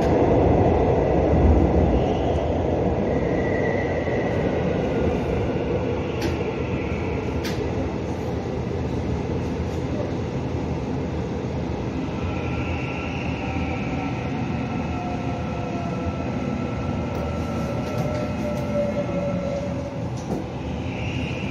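Seoul Subway Line 4 train heard from inside the car, running and slowing as it pulls along the platform into its terminal station. The running noise eases off, a steady high tone and a falling motor whine come in during the second half, and two sharp clicks come about six and seven and a half seconds in.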